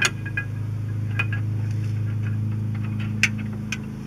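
Metal clutch parts of a Massey Ferguson 165 two-stage pressure plate clicking and clinking together as the pressure plate cover is fitted over the release levers: a few sharp clicks, at the start, about a second in and twice near the end. A steady low hum runs underneath.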